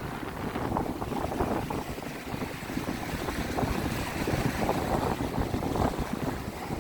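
Small lake waves lapping and splashing against the shore, a steady uneven wash, with wind buffeting the microphone as a low rumble.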